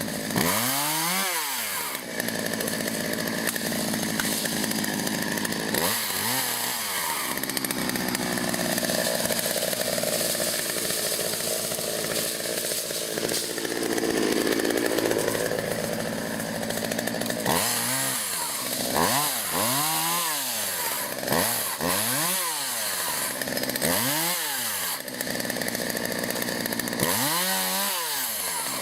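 Chainsaw cutting tree limbs, held at high speed for long stretches; in the second half the engine is revved up and let fall back again and again, about once every two seconds.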